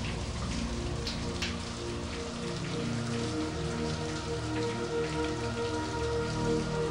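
Steady rain falling, a continuous patter of drops, mixed with soft music of long held notes.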